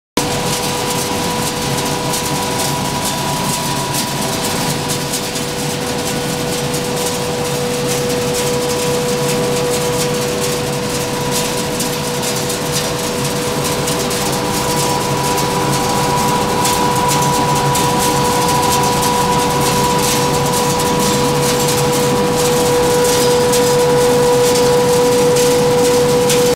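Refrigerator recycling plant machinery running: a loud, steady mechanical noise with a constant whine, growing slightly louder toward the end.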